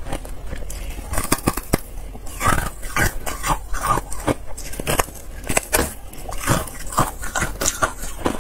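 Carbonated ice being bitten and chewed: a dense, irregular run of sharp crunches and crackles.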